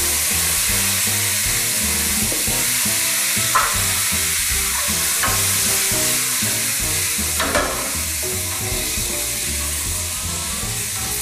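Tomatoes frying in oil in a frying pan on a gas burner: a steady sizzle, with a few brief clicks of a utensil against the pan.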